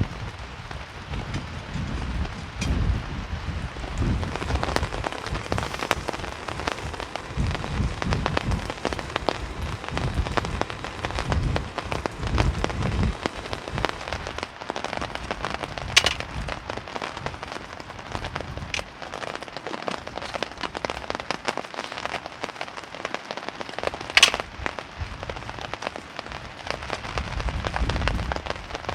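Heavy rain falling on a hammock tarp, a dense crackle of drops, with low gusts of wind buffeting the microphone through the first half and again near the end. Two sharper, louder drop hits come about halfway through and later on.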